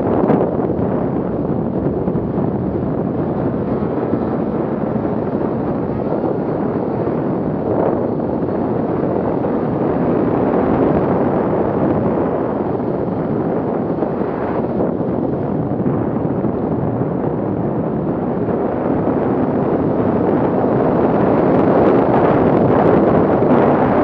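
Steady rush of wind over the microphone mixed with the running two-stroke engine and track of a 2017 Arctic Cat M8000 snowmobile riding along at speed. It grows a little louder over the last few seconds.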